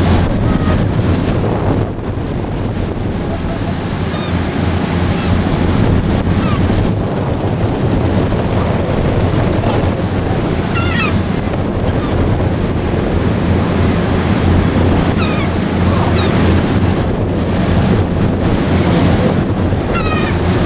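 Boat engine droning steadily under the rush of water along the hull, with wind buffeting the microphone.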